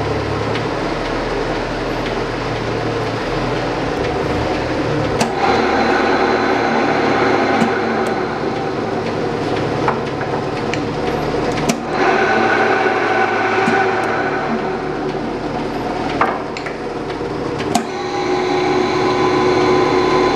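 Van Norman milling machine running under power: a steady motor and gear drone. About five seconds in a gear whine comes in, and it changes pitch twice more, with sharp clicks as the controls are switched.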